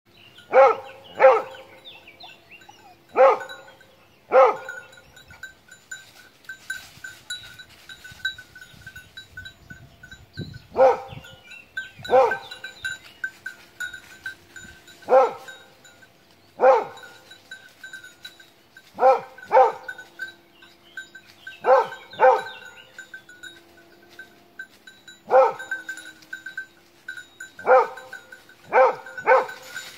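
Hunting dogs baying at a wild boar held at bay: loud short barks, singly or in pairs, repeating irregularly every one to several seconds.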